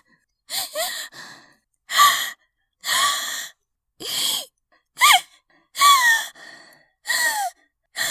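A person's voice gasping for air in about eight harsh breaths, roughly one a second. Several breaths carry a squeaky whine that rises or falls in pitch. It sounds like someone in an asthma attack who cannot breathe, though the sound effect was filed as a horror scream.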